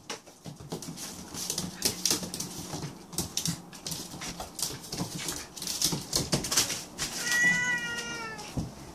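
Paws and claws of a Cornish Rex cat and a Russian Toy dog clicking and scrabbling on a laminate floor as they play, with one meow of about a second near the end, falling slightly in pitch.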